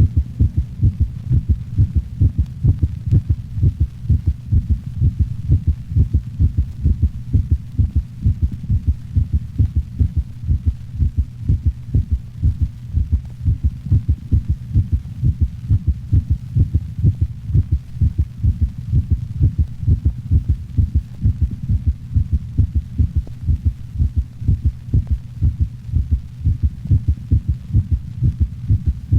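Heart sounds of a normal large-breed dog: low-pitched beats repeating steadily, over a steady low hum. The first heart sound is split into two close components by the left and right atrioventricular valves closing out of step, a normal finding in larger dogs.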